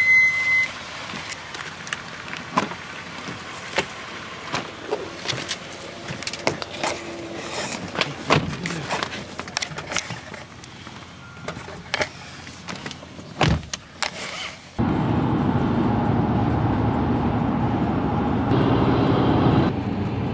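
A short beep, then scattered clicks and knocks of a phone being carried while walking for about fifteen seconds. About fifteen seconds in, this cuts abruptly to the steady engine and road noise of a car driving.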